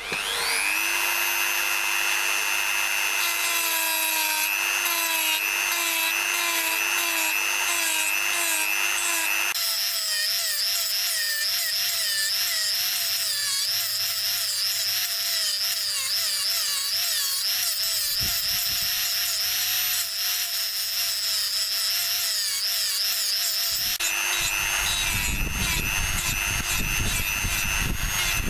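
Dremel rotary tool grinding out the worn pivot pin of an old Suffolk door latch: the motor spins up into a high whine that wavers as the bit bites into the metal. The speed jumps higher about ten seconds in, drops back near the end, then winds down.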